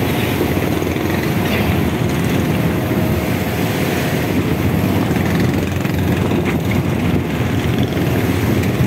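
Fishing boat's engine running steadily under way, a continuous low rumble.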